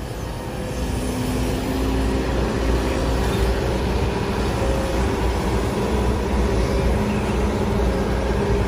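A heavy vehicle's engine running steadily with a deep low hum. It cuts in suddenly at the start.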